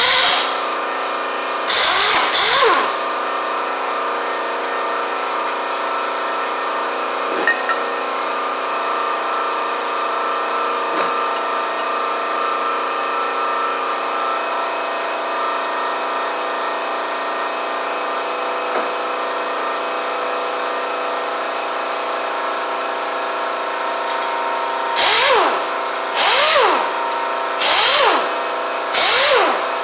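Pneumatic impact wrench run in short bursts, each spinning up and winding down, while bolts are loosened on an engine being taken apart: one burst at the start, one about two seconds in, then five in quick succession near the end. Under it runs a steady hum.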